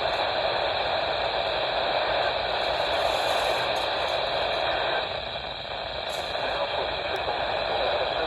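Weather radio receiver giving out steady static hiss on a weak signal, with no broadcast voice getting through. The hiss drops a little in level about five seconds in.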